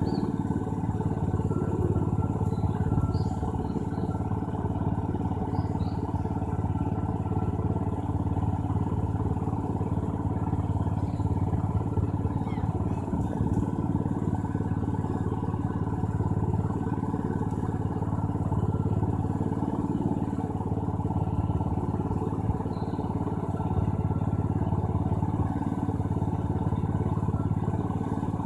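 A steady low mechanical hum, strongest in its low drone, with a few faint high chirps over it.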